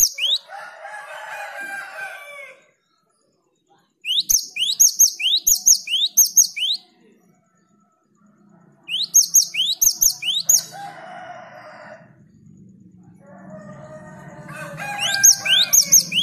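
Cinereous tit (gelatik batu) singing: four repeated bursts of quick, sharp, upward-sweeping whistled notes, each lasting about two seconds, with a lower, harsher chattering call in the gaps between bursts.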